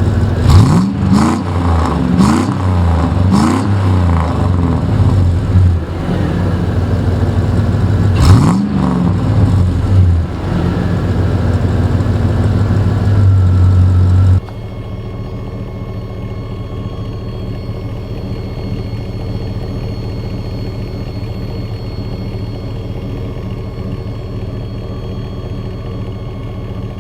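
Chevy 5.3L V8 exhaust through a Cherry Bomb Salute straight-through muffler, revved in a run of quick blips at the start and once more about eight seconds in, settling to a steady idle between. About halfway through it cuts abruptly to a quieter, steady idle.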